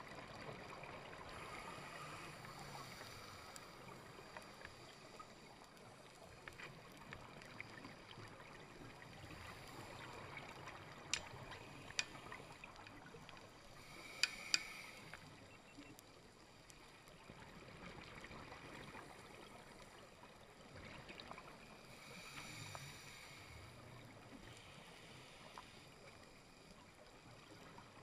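Faint, muffled underwater ambience picked up through a waterproof camera housing on a reef dive: a steady low hiss that swells and fades every several seconds, with a few sharp clicks about halfway through.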